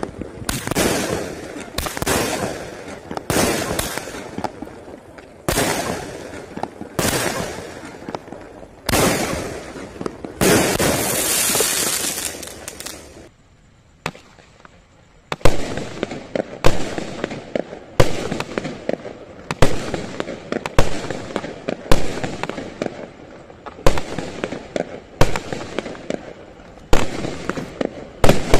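Multi-shot firework cake firing shell after shell, each a sharp bang about every second and a half, with a longer hiss around ten seconds in. After a short pause about 13 seconds in, the bangs resume, sharper and louder.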